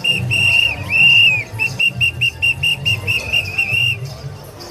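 A whistle blown in quick short blasts, about four a second, with two longer held blasts about a second in, stopping near the end. Low thumping runs underneath throughout.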